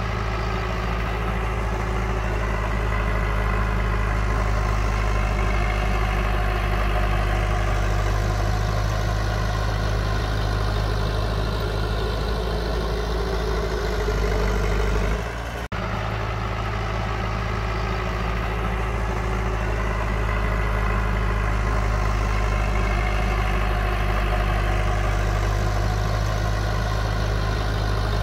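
Heavy diesel engine of earthmoving machinery running steadily at a constant speed. There is a sudden brief break about halfway through, after which the same steady running continues.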